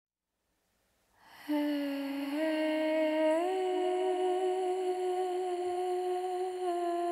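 Background music that begins about a second in: a slow, hum-like melody of long held notes that steps up in pitch once and back down near the end.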